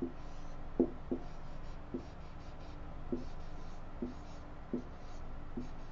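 Dry-erase marker writing on a whiteboard: a run of about eight short, sharp strokes and taps as the letters of a word are written.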